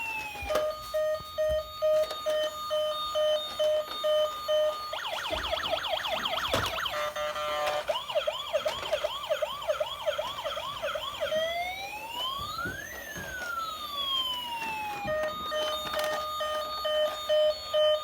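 Battery-powered toy police car's electronic siren cycling through its tones: an on-off beeping for a few seconds, then rapid yelping sweeps and fast repeated chirps, then a slow rising and falling wail, and the beeping again near the end.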